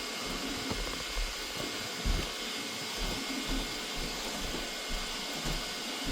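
Elegoo Neptune 4 Max 3D printer's cooling fans running, a steady airy whir, with a few faint low knocks.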